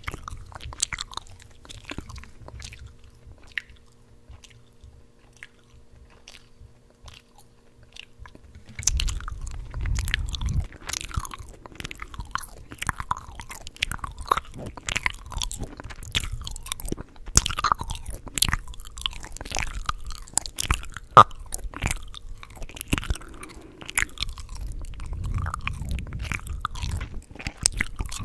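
Close-miked gum chewing: a run of mouth clicks and smacks. They are sparse and quiet for the first several seconds, then denser and louder from about nine seconds in.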